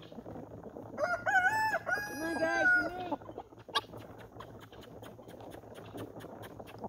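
A domestic rooster crows once, about two seconds long: a rising opening that runs into a long held note that drops at the end. A sharp click and a run of light ticks follow.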